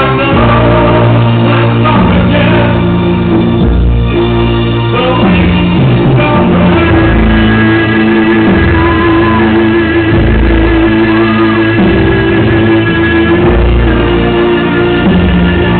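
Live rock music played loud with a singer, long held notes over a bass line that changes every second or so.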